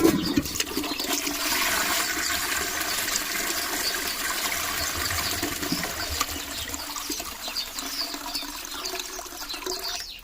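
A circa-1997 Ideal Standard Ropetwist close-coupled toilet flushing: water rushes from the cistern's siphon into the pan as a steady noise that slowly eases off toward the end.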